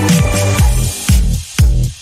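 Background electronic dance music with a steady beat of about two strokes a second.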